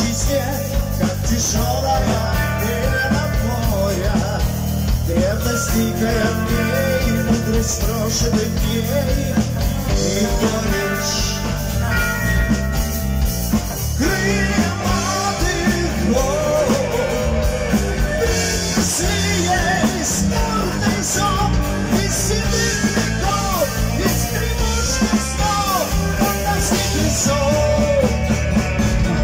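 Live hard rock band playing: distorted electric guitar, bass guitar and drums, with a male singer. About halfway through the texture changes, and a harmonica played into the vocal microphone carries bending lines over the band.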